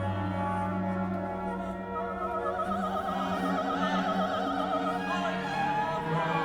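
Classical music: an operatic voice singing long notes with a wide vibrato over orchestral strings.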